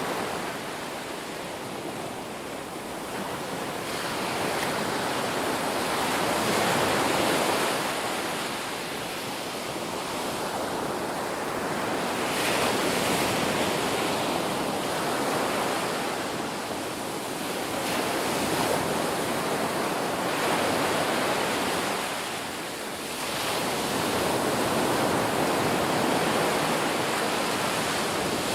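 Ocean waves breaking and washing in, a continuous surf sound that swells and eases every few seconds.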